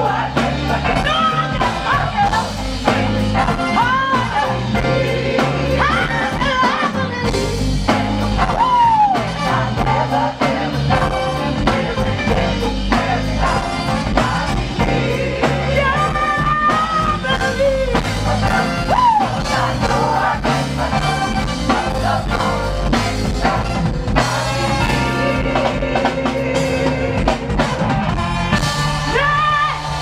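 Live gospel performance: a female lead singer with a choir behind her, backed by a band with bass and drum kit, all through a concert PA.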